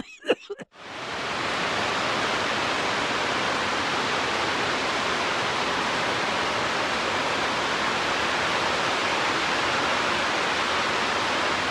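Heavy rain pouring onto a roof and running off its edges: a steady, even hiss that fades in over the first second.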